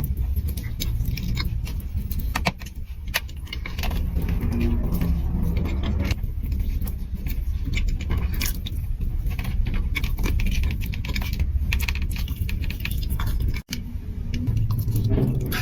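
Close-miked eating sounds: chewing and mouth noises, with a steady run of sharp clicks and crackles.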